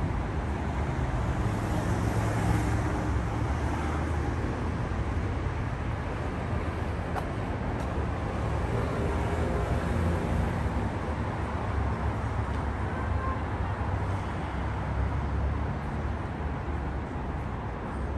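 Urban street ambience: a steady low rumble of road traffic.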